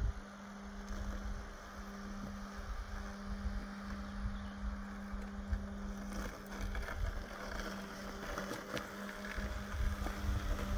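Mammotion Luba AWD 5000 robotic lawn mower running as it mows grass: a steady electric-motor hum over a soft noise of cutting and driving.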